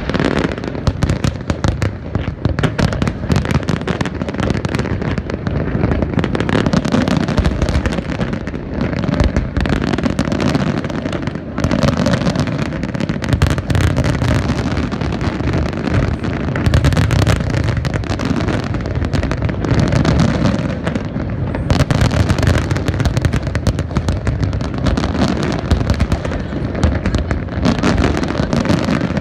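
Fireworks finale: a dense, continuous barrage of shells bursting in rapid succession, booms and crackles overlapping with no pause.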